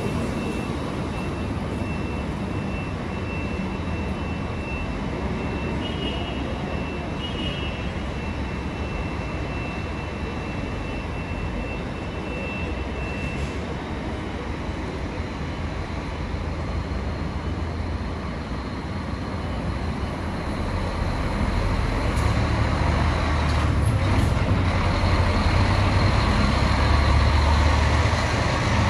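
Scania K400 double-deck coach's diesel engine running as the bus pulls away from its bay and drives past, growing louder with a deep rumble over the last several seconds as it comes close. A thin, steady high tone sounds through the first half, with two short beeps a few seconds in.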